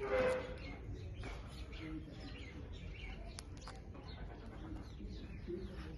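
Ringneck parakeet calling: a louder, falling call at the start, then softer scattered chirps and one brief high whistle about three and a half seconds in.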